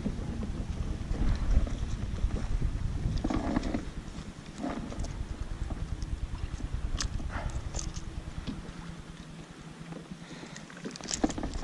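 Wind rumbling on the microphone, easing about four seconds in, with a few scattered sharp clicks and taps as pliers work a hook out of a pickerel's mouth.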